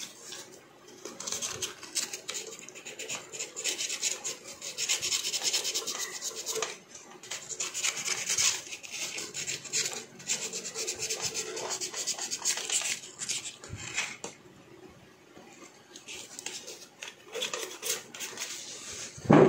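Sandpaper rubbed back and forth in quick strokes on the rice cooker's thermostat switch contacts to clean off dirt, easing off for the last few seconds.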